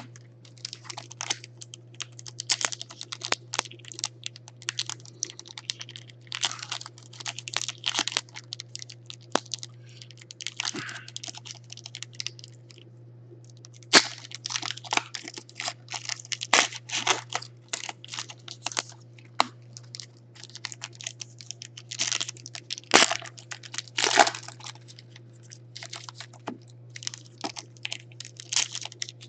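Foil trading-card pack wrappers crinkling and tearing as they are ripped open by hand, a dense run of sharp crackles. There is a brief pause a little before halfway, then a single sharp tap. A steady low hum runs underneath.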